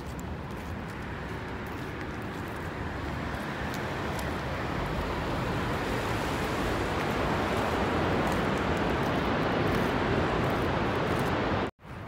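Steady rushing roar of the Vøringsfossen waterfall in the gorge below, growing louder over several seconds and cutting off suddenly just before the end.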